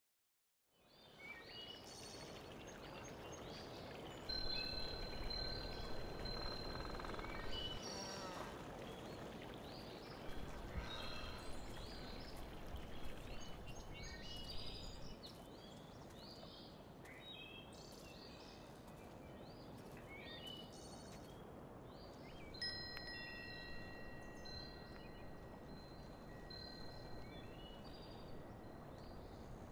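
Garden ambience of birdsong chirps over a faint steady hiss, with long, held chime tones ringing from about four seconds in and again from about twenty-two seconds.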